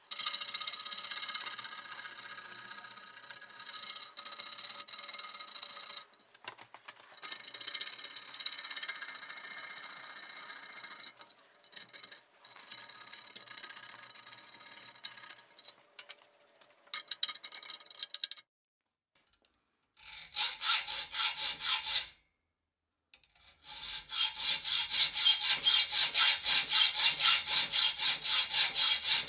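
A hand deburring tool scraping burrs off the edge of a milled slot in a steel bracket, a steady scrape with short pauses. After two short silences, a hacksaw cutting through a steel threaded rod with even back-and-forth strokes.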